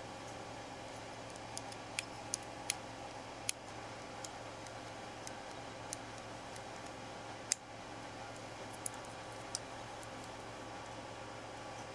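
Scattered small clicks and taps of the parts of a gas blowback rifle's trigger assembly being handled and fitted together, about a dozen at irregular intervals, the sharpest about seven and a half seconds in, over a steady low hum.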